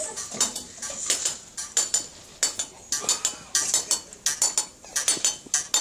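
Homemade percussion instruments made from household items such as bottles and cans being struck and shaken. They make a loose, steady rhythm of sharp clinking, clattering hits, about three a second.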